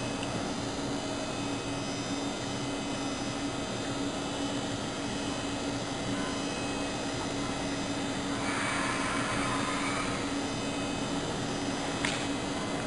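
Steady hum of a running computer, a constant low tone over even fan-like hiss. A brief rustle comes about eight and a half seconds in, and a single click comes near the end.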